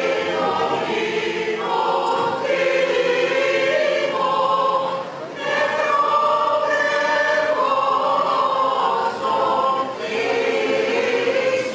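A group of voices singing Greek Orthodox Byzantine chant, the Good Friday hymns of the Epitaphios procession, in long held phrases with brief pauses between them.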